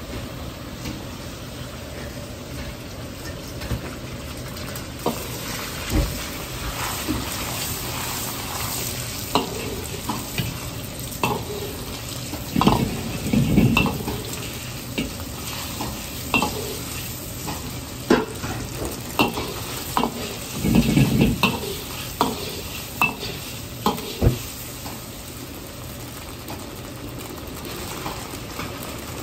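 Beaten egg sizzling in hot oil in a wok, with a metal ladle knocking and scraping against the wok as the egg is stirred. The sizzle is steady. The ladle knocks come in quick runs through the middle, with two louder bouts of scraping.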